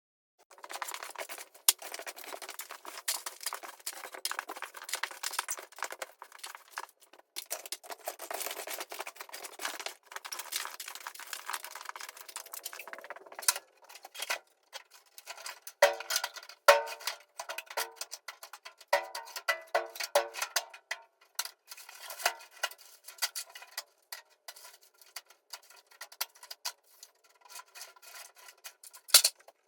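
Hand demolition work: steady scraping and rasping for about the first thirteen seconds, then a series of separate sharp knocks and metallic clattering hits, some of them ringing briefly.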